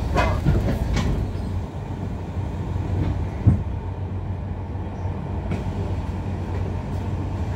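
Steady low rumble of a New Routemaster hybrid bus standing at a stop, heard from inside on the upper deck. A couple of faint clicks come in the first second, and a single knock about three and a half seconds in.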